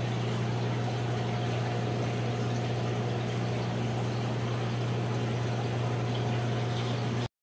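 Aquarium water bubbling from an airstone over a steady low hum of the tank's pump, cutting off abruptly near the end.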